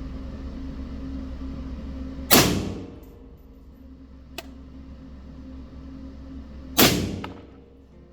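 Two AR-15 rifle shots about four and a half seconds apart, each a sharp crack that dies away over about half a second, fired while zeroing the optic; a small click falls between them, over a steady low hum.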